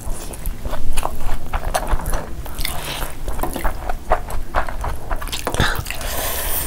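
Close-up eating sounds of people biting and chewing meat curry, mutton shanks and chicken, by hand: a run of wet smacks and clicks.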